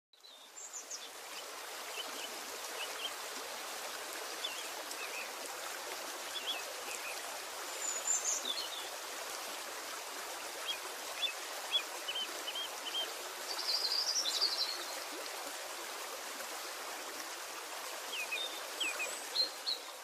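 Birds chirping and trilling in short, scattered calls over a steady rushing hiss, fading in over the first second or two.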